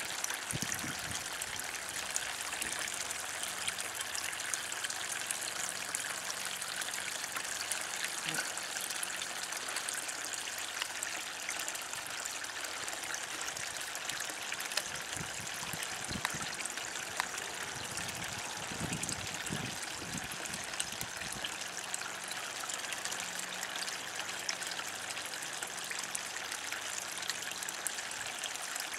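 Garden pond water trickling and splashing steadily as a small fountain's stream falls onto the pond surface. A few low rumbles come through around the middle.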